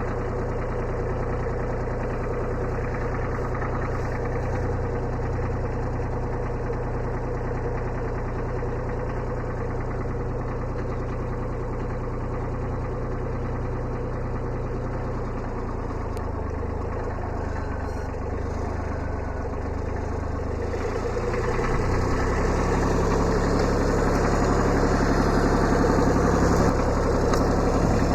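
Kubota B7100 subcompact tractor's small diesel engine running steadily while the backhoe is worked. About two-thirds of the way through the engine note changes and gets a little louder.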